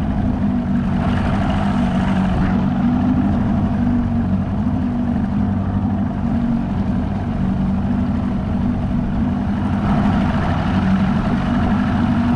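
Jon boat's motor running steadily under way, a constant engine drone with rushing wind and water noise that swells briefly about a second in and again near the end.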